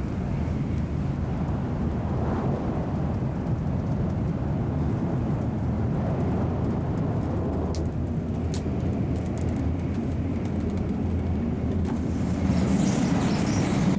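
Shinkansen bullet train running at speed, heard from inside the carriage as a steady low rumble. A few faint clicks come about eight seconds in, and a louder hiss swells near the end.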